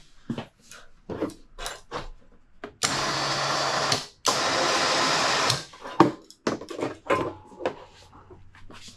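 A small electric motor, such as a power tool's, whirring in two short bursts of about a second each, with clicks and knocks of handling before and after.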